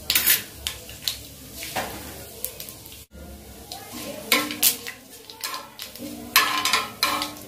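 Mustard seeds, cumin and curry leaves sizzling in hot oil on a tawa for a tadka, while a metal spoon scrapes and stirs across the pan in bursts, loudest in the second half.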